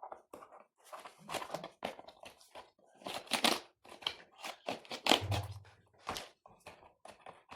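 Hands-on keyboard cleaning: irregular plastic clicks and short scrubbing or scraping strokes on a computer keyboard, the loudest stretches a little past three seconds in and around five seconds in.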